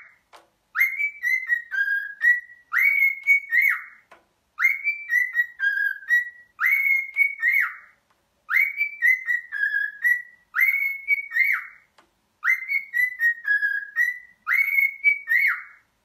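Cockatiel whistling a short tune over and over: the same phrase of about three seconds, repeated four times with brief pauses between.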